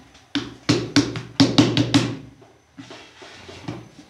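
Hands slapping and patting bread dough: about eight quick, sharp slaps in under two seconds, then softer, irregular patting.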